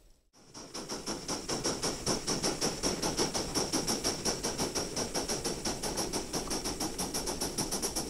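Aster gauge 1 live-steam model of a DRB class 52 steam locomotive working a train, its exhaust chuffing in a fast, even beat of about six a second over a steady high hiss. The sound starts after a brief drop-out at the very beginning.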